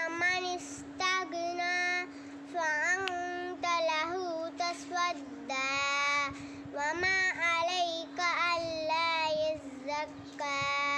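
A young girl reciting the Quran in a melodic chanted style, phrase by phrase with short pauses between, her voice bending up and down in pitch.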